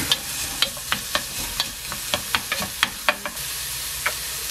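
Diced onion and sliced garlic sizzling steadily in oil in a stainless steel saucepan as they are stirred with a wooden spoon. Frequent sharp ticks come over the hiss.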